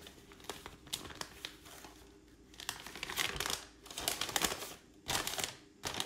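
Folded paper instruction manual being unfolded and handled, crinkling and rustling in several irregular bursts, loudest about halfway through and again near the end.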